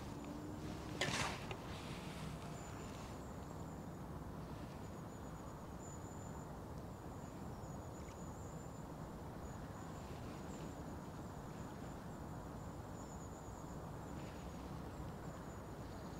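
Quiet outdoor ambience: a steady low background hum, one short knock about a second in, and a faint, high, thin chirring that comes and goes.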